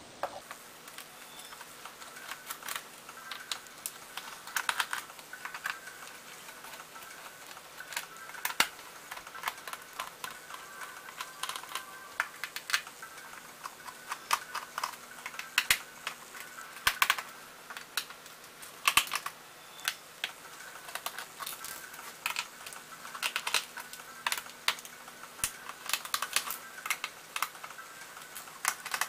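Irregular clicks and taps of hands working on a laptop, over a faint steady hum.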